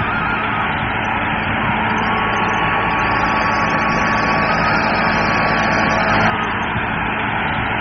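Small electric motor and gearing of a homemade model Swaraj 855 tractor running steadily with a faint whine, its model rotavator churning through sand. The sound changes abruptly about six seconds in.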